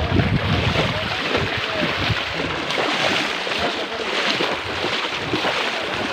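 Shallow river water splashing and sloshing in a continuous jumble of small splashes.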